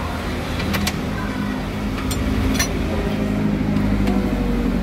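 A few sharp metal clicks of a wrench and screwdriver on the valve rocker arms and adjuster screws of a Nissan TD25 diesel head during valve clearance adjustment, over a steady low engine hum in the background.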